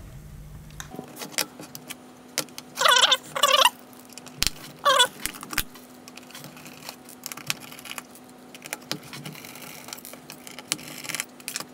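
Parts of a 3.5-inch floppy drive being handled while it is taken apart: scattered clicks and clinks of its thin sheet-metal cover and small parts, with a few brief metallic scrapes about three and five seconds in.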